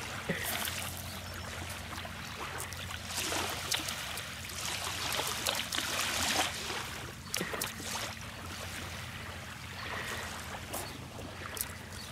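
Small waves washing on a pebble shore, with splashing as a large hooked fish is dragged through the shallows onto the beach.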